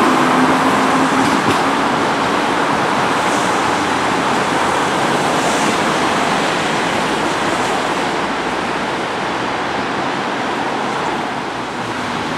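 Kyiv metro train pulling away from the platform, its running noise and a low steady hum fading in the first couple of seconds as it moves off, leaving a steady rushing noise.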